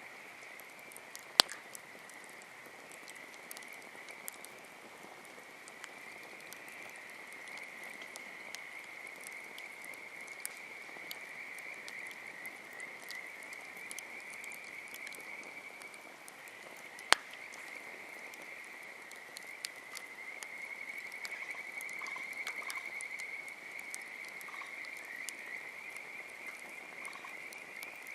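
A continuous chorus of frogs calling, a dense run of rapid pulses that swells a little after about twenty seconds. Sharp pops from the burning firewood cut through twice, about a second in and near the middle, with fainter crackles between.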